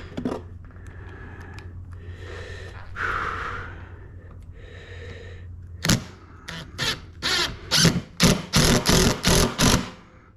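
Handling noise while working on a wooden workbench: soft rustling over a low steady hum, then a quick irregular run of sharp clicks and knocks in the last few seconds.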